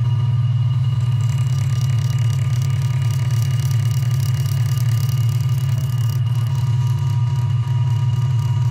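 Lathe motor running steadily with a strong low hum. A paper towel pressed against the spinning walnut pen blank adds a soft hissing rub, strongest from about one to six seconds in.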